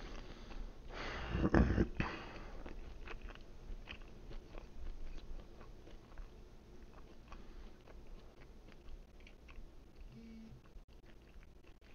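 A person chewing a mouthful of pizza with closed lips, with small crunching clicks. The chewing is loudest about a second or two in and then grows quieter and more sparse.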